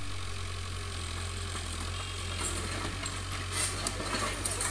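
Excavator's diesel engine running steadily with a low drone, with a few short, high clicks in the second half.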